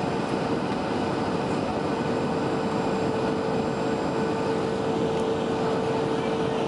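Cabin noise of a Boeing 757-200 on final approach: a steady rush of engine and airflow with a constant hum.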